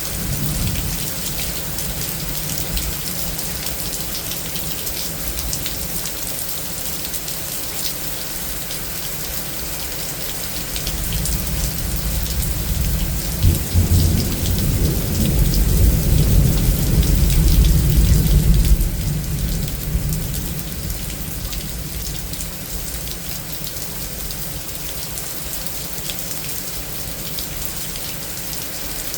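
Steady heavy rain falling on surfaces, with a long roll of thunder that starts building about a third of the way in, gives a sharp crack partway through, rumbles loudest through the middle, then dies away.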